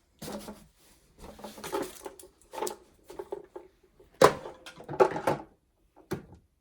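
Hands handling packaging and plastic parts: irregular rustling and clicking, broken by several sharp knocks, the loudest about four seconds in.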